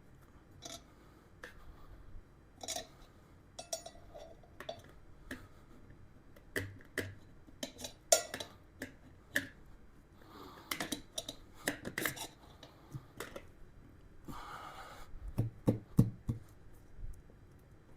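Tire irons levering a new motorcycle tire's bead over the wheel rim: irregular metal clicks and knocks with a few short scrapes, one longer scrape about two thirds of the way through.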